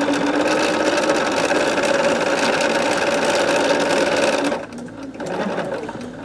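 Bernina sewing machine stitching patchwork pieces for a quilt block at a steady speed. It stops about four and a half seconds in.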